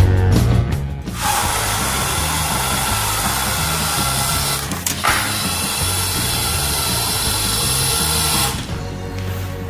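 LEGO Mindstorms EV3 robot's electric motors whirring as it drives forward and closes its gripper arms, with a brief break about halfway. A steady music bed plays underneath.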